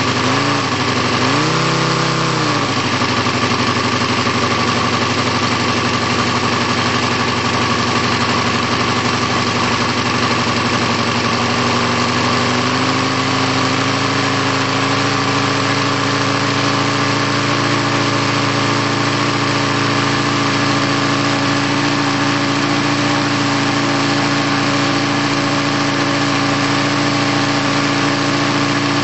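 ASP FS400AR five-cylinder four-stroke radial model aircraft engine running with a Menz 20x10 propeller. It is revved up and back down twice near the start, then runs steadily at low speed. About twelve seconds in its pitch steps up slightly and holds there.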